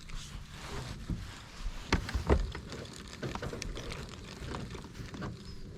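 Low rumble of wind on the microphone, with scattered clicks and a couple of louder knocks about two seconds in.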